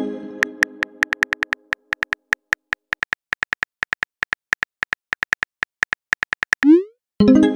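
Phone keyboard typing sound effect: quick, irregular clicks, several a second, as a text message is typed. A ringing chime fades out at the start, and near the end a short rising swoosh is followed by another ringing chime as the message is sent.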